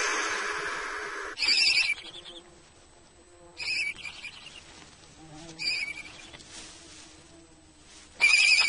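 Barn owl chicks calling: a rasping hiss of about a second and a half, then short, higher pitched calls repeated about every two seconds, the loudest near the end.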